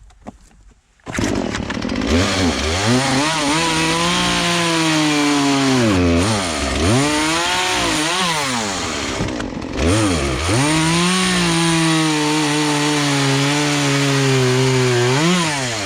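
Poulan Pro two-stroke chainsaw starting up loud about a second in, its engine speed dipping and climbing back several times, then held high and steady near the end, as it cuts small wood. The carburetor has been freshly adjusted so the saw no longer stalls while cutting.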